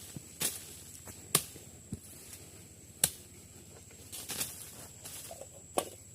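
A machete chopping wood: about five sharp, separate strikes at uneven intervals, over a steady high-pitched tone in the background.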